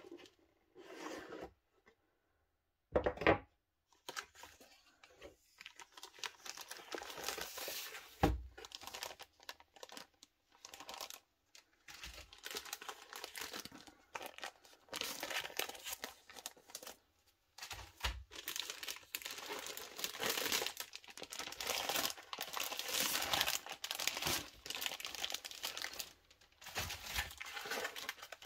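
Clear cellophane bags around model-kit parts crinkling and rustling as they are handled and pulled out of the box, with a few knocks; the loudest knock comes about three seconds in.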